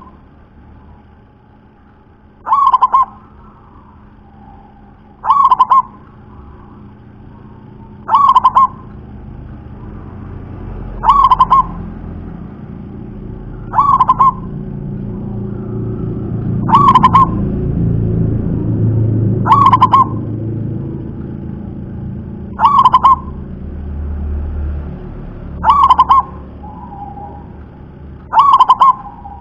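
Zebra dove (perkutut) cooing: a short, deep, full coo repeated at even intervals of about three seconds, ten times. A low rumble swells in the background through the middle and fades again.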